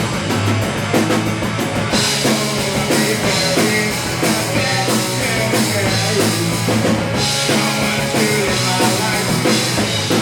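Live rock band playing loudly with drum kit, electric guitars and bass, in a fast punk-rock style.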